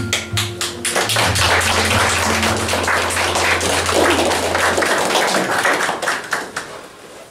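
Audience applauding: dense hand clapping that starts at once and dies away about a second before the end. Under it for the first five seconds runs a low steady hum.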